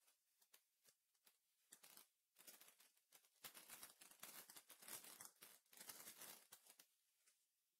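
Faint crinkling and scratchy rustling of trading cards and their pack wrapper being handled, in short scattered spells from about two seconds in until near the end.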